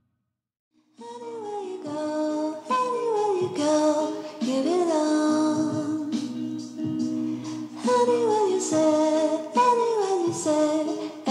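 Background music that starts about a second in after a brief silence. It has a gliding melody over steady held chords.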